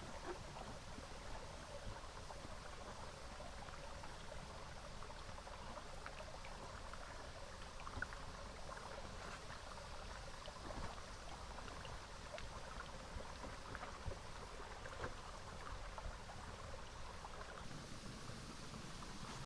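Small river flowing and trickling over stones, steady throughout, with faint scattered clicks.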